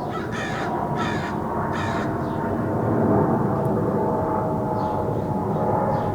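A crow cawing three times in quick succession, then a few fainter high calls, over a steady background rush of noise.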